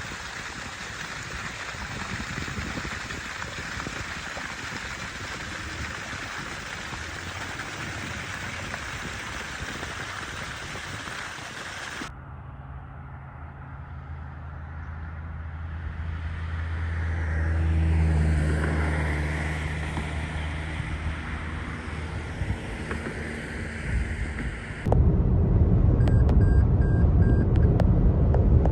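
Outdoor sound in three abruptly cut pieces: a steady rushing noise, then a motor hum that swells and fades as if passing, then a heavy low rumble of wind on the microphone.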